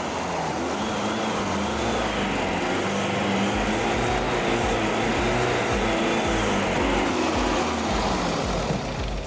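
Classic Lada four-cylinder engine running on a makeshift single-injector fuel system in place of its carburetor, its speed rising and falling several times as the throttle is worked. The engine is getting too much fuel from the new injector.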